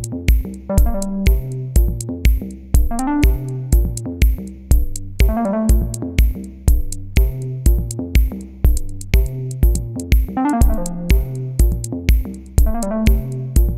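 Background music: an electronic backing track with a steady beat of about two hits a second under held bass notes and short melodic runs.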